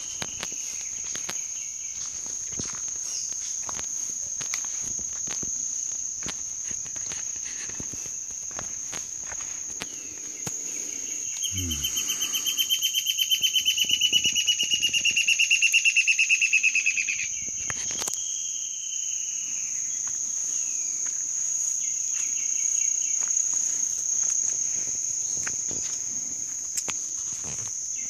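Amazon rainforest insects: a steady high-pitched insect drone, with a louder, rapidly pulsing insect call that swells from about 11 seconds in and stops about 17 seconds in.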